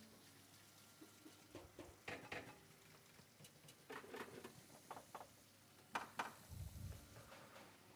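Quiet room with faint, scattered clicks and taps. Two sharper ones come about six seconds in, followed by a low thump.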